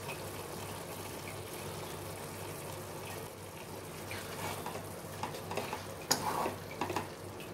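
A spatula stirring and scraping thick carrot halwa mixed with crumbled khoa in a non-stick pot. There is a steady low hiss throughout, and a run of short scraping strokes from about four seconds in grows louder near the end.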